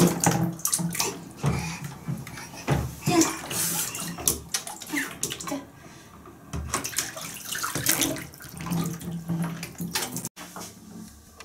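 Bathwater splashing and sloshing in a shallow bathtub as a toddler moves about in it, with irregular knocks of plastic bath toys. The sound drops away abruptly near the end.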